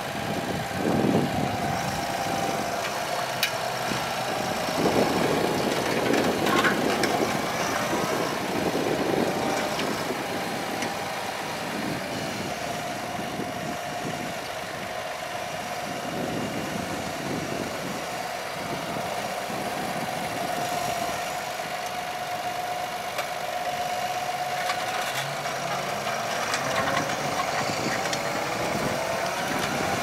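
Fendt 720 Vario tractor's six-cylinder diesel engine running, with a steady high whine over it, as the tractor turns with a four-furrow reversible plough. Near the end the engine note rises as the plough is pulled back into work.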